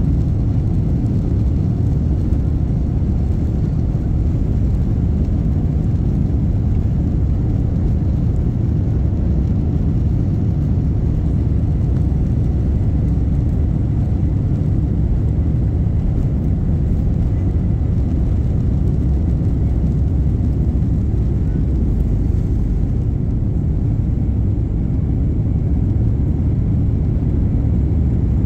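Jet airliner on its takeoff roll and liftoff, heard from inside the cabin: a steady loud rumble of the engines at takeoff power and the wheels on the runway. The higher part of the noise thins slightly a few seconds before the end, as the plane leaves the ground.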